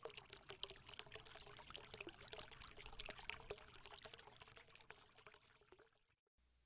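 Faint, dense crackling fizz of many tiny clicks, like liquid being poured, swelling and then fading out about six seconds in: a sound effect under the channel's logo animation.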